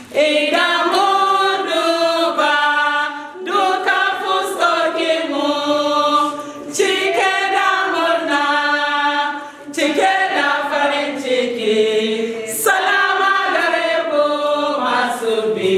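A women's church choir singing a worship song together, in phrases of about three seconds with short breaths between them.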